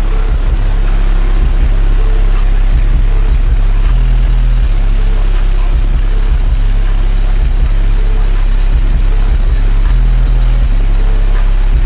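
Car stereo with four 18-inch Tantric HDD subwoofers playing bass-heavy music at very high volume: deep, held bass notes that change pitch every second or so.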